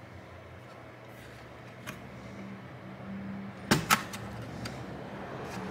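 Small clicks and taps of fingers handling an Asus PN61 mini PC's motherboard in its metal chassis, with a sharp double click a little under four seconds in.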